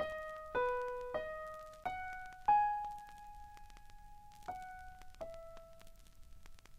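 Solo piano playing a slow, gentle melody one note at a time, each note struck and left to fade; one note about two and a half seconds in is the loudest and is held for about two seconds before the line moves on.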